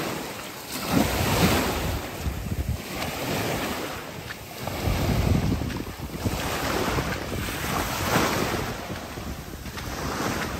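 Small sea waves washing in and out on the shore, the rush of water swelling and fading every couple of seconds, with wind buffeting the microphone.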